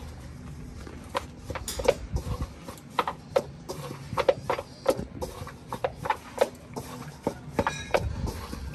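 Hands rubbing and working damp fermented maize flour in a metal basin, with irregular light knocks and clicks of hands against the bowl, two or three a second.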